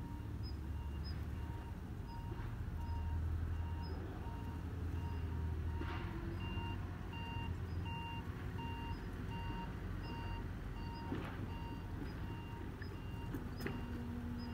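A vehicle's reversing alarm beeping evenly, about two beeps a second, over a low engine rumble.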